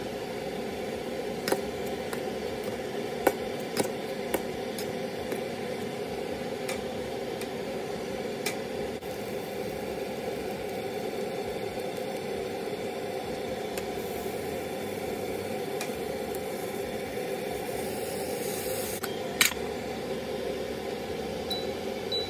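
Ramyeon broth boiling hard in a thin aluminium pot: a steady bubbling hiss with a few light clicks. A sharp metallic clink comes about nineteen seconds in as the lid is set on the pot.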